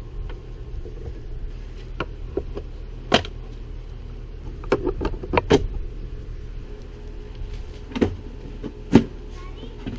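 Scattered clicks and knocks of plastic engine-bay parts being handled and unclipped while the intake and upper radiator hose are removed. A handful come together about five seconds in, and the sharpest knock is near the end. A steady low hum runs underneath.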